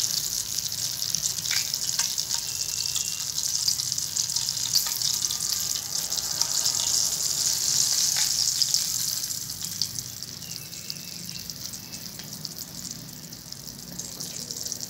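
Hot Dalda ghee (vanaspati fat) sizzling and crackling in a steel bowl with ground black pepper stirred in. The sizzle weakens about nine to ten seconds in as milk is poured into the hot fat.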